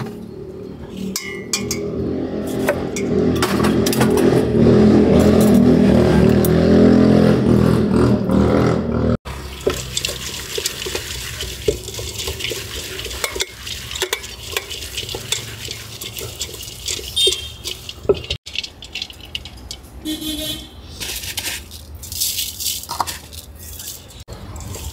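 Hands tossing and squeezing shredded cucumber noodles with spices in a stainless-steel bowl, with scattered clicks and scrapes against the steel. Over the first nine seconds a loud droning hum builds up and then stops suddenly.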